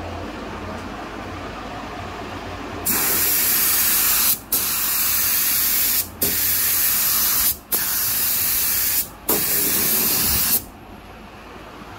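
Air-powered gravity-feed spray gun spraying clear coat: five hissing passes of about a second and a half each, with short breaks where the trigger is let go, starting about three seconds in.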